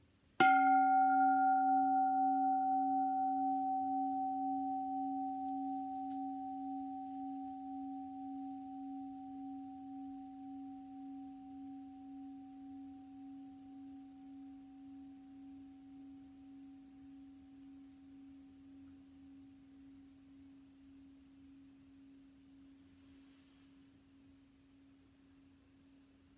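Singing bowl struck once with a padded mallet about half a second in, then ringing with one low tone and a few higher overtones. The higher overtones die away within a few seconds, while the low tone pulses gently as it fades slowly over the next twenty-five seconds.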